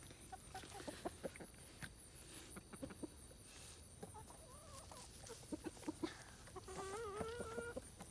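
Chickens clucking softly: many short clucks throughout, then one longer, wavering call near the end.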